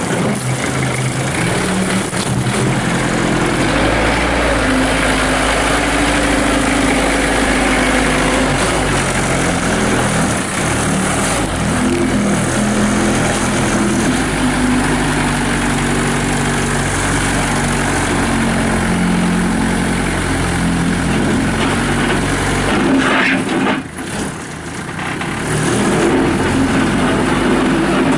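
Bobcat B300 backhoe loader's Kubota V2203 four-cylinder diesel engine running, its speed rising and falling under the throttle. There is a short drop in level about 24 seconds in before it picks up again.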